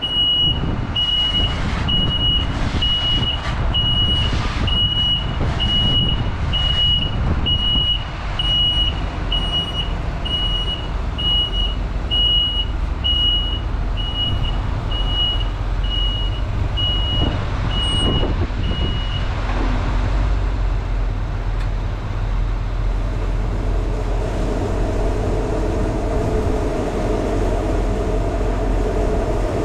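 Chevrolet Silverado 6500 plow truck's diesel engine running as it backs up, its reversing alarm beeping at an even pace until it stops about two-thirds of the way through. A steadier hum joins the engine near the end.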